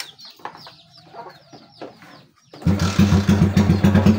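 A motorcycle engine starts running abruptly about two and a half seconds in, a loud, steady, fast-pulsing engine note. Before it, faint chicken clucking.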